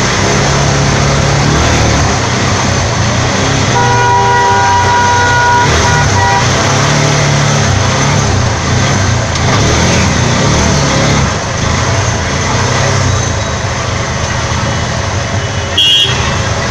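Steady engine drone heard from inside a CNG auto-rickshaw moving through traffic. About four seconds in, a vehicle horn sounds for roughly two and a half seconds, with a short break near its end. A brief sharp blip comes near the end.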